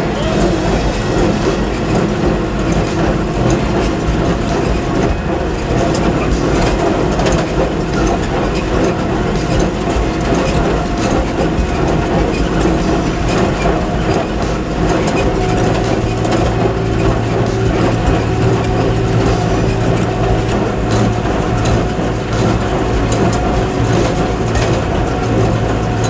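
Tractor engine running under load while a John Deere 359 small square baler works behind it, its pickup and plunger making a steady, repeated mechanical clatter.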